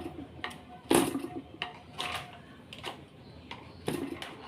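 A string of sharp knocks and clacks, spaced unevenly about a second apart, from handling a small two-stroke engine that is not running.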